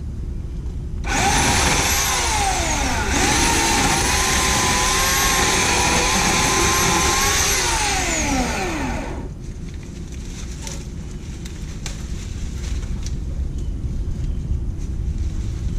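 Homelite 16-inch corded electric chainsaw spinning up with a rising whine about a second in. It dips briefly and revs back up, then runs steadily. Near nine seconds the trigger is released and the whine falls away as the chain coasts to a stop, leaving a low rumble of wind on the microphone and faint clicks.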